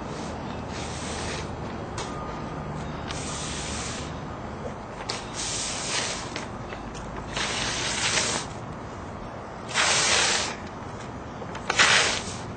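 Steady low rumble with several short bursts of hiss, each about a second or less long, the last two near the end the loudest.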